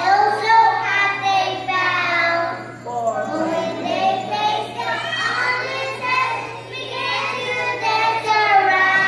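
A group of kindergarten children singing a Christmas song together.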